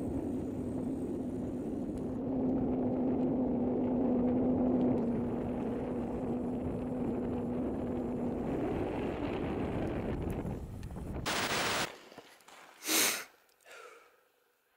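Strong wind buffeting the microphone high on an ice-coated tower: a steady rumble with a faint low tone running through it. About twelve seconds in it cuts off, and a brief hiss and a couple of short rustling or breathing sounds follow.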